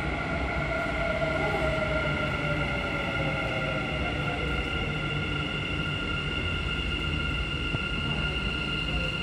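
Dubai Metro train running along an elevated station: steady rumble with several steady high whining tones. A lower whine falls slowly in pitch over the first four seconds, the way an electric train's motors sound as it slows.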